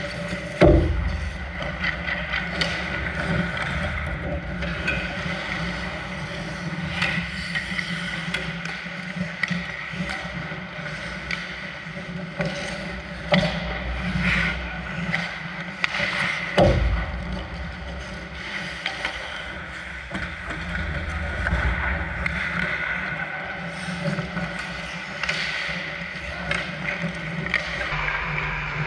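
Ice hockey play: skate blades scraping the ice, with sharp clacks of sticks and puck against a steady hum. Two heavy thumps stand out, one about a second in and one a little past the middle.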